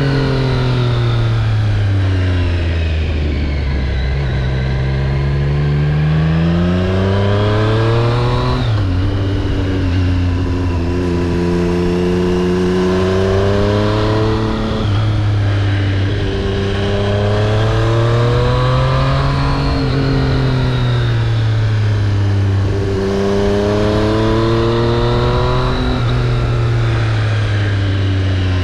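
Triumph Street Triple RS three-cylinder engine under way, its pitch falling as the throttle eases off, then climbing, with a sudden drop about eight seconds in as it shifts up a gear. After that it keeps rising and falling in long swells as it is worked through bends.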